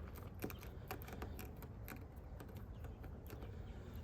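Faint, scattered light clicks and taps over a low steady rumble.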